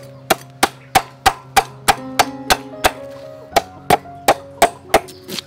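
Cleaver striking down through a whole fish onto a wooden chopping board, about three sharp chops a second with a short pause a little past halfway. Background music with steady held notes underneath.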